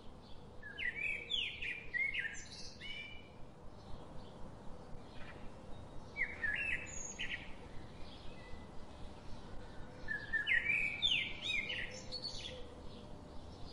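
Songbird singing in three bouts of quick, high chirping phrases: about a second in, around six seconds, and again around ten to twelve seconds in.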